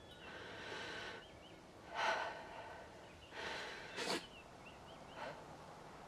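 A woman crying: about five sobbing breaths and gasps, the sharpest one about four seconds in, with faint bird chirps between them.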